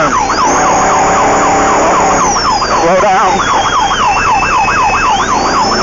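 A rapid yelp siren warbling up and down about four times a second, sounding from an off-road race vehicle at speed. Behind it a high whine rises and falls.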